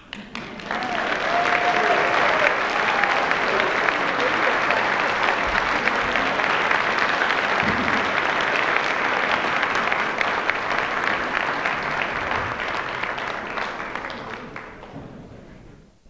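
Audience applauding after a concert band piece ends, steady clapping that tapers off near the end.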